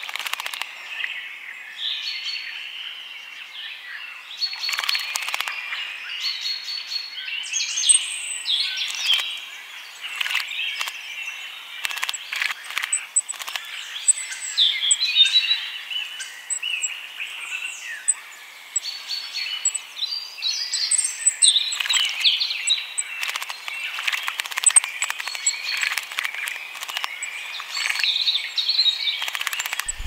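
Small songbirds singing and calling throughout, busy and overlapping, with faint repeated very high notes. Short sharp splashes come in among them as goldcrests and firecrests bathe in shallow water.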